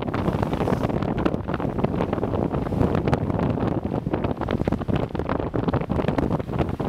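Wind buffeting the microphone: a steady low rumble with constant rapid fluttering.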